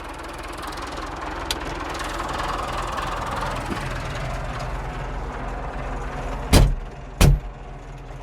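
Landini Blizzard 65 tractor's diesel engine running steadily, with two loud knocks near the end, about two-thirds of a second apart.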